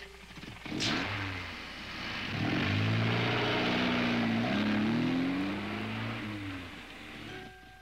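A sharp bang about a second in, then a car engine revving up and down for several seconds before it dies away near the end.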